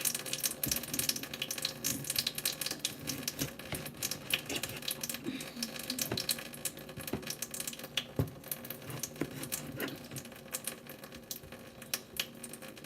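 Tap water running into a kitchen sink while cut potatoes are rinsed and handled, with frequent small knocks and clicks.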